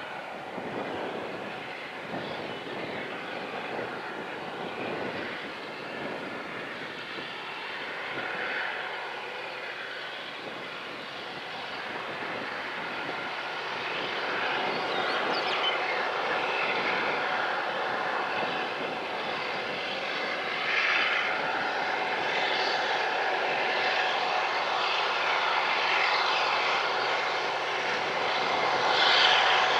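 Union Pacific freight train's diesel locomotives approaching with a steady engine drone that grows louder as they come closer.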